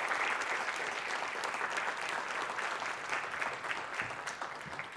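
Audience applauding, a dense crowd of clapping hands that dies away near the end.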